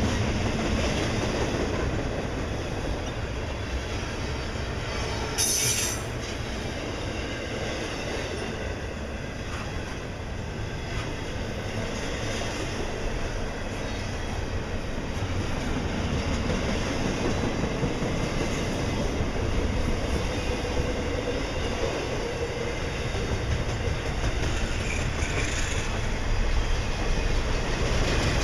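Double-stack container well cars of a passing intermodal freight train rolling by, steel wheels on the rails giving a continuous low, steady noise that grows a little louder near the end. A brief sharp noise cuts through about five seconds in.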